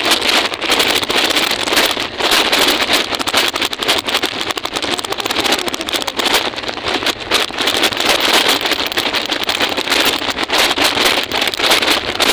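Loud, steady rustling and crackling on the microphone, dense with fine crackles and with no clear tone, the kind of handling and buffeting noise picked up while on the move.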